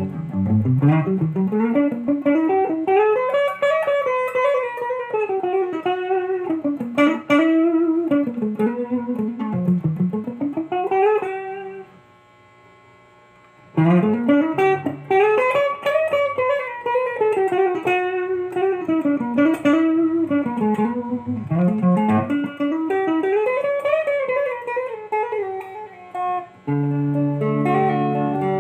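Essex Les Paul-style solid-body electric guitar playing a fast single-note lead line that sweeps up and down the neck. The phrase is played twice, with a brief silence between them about twelve seconds in.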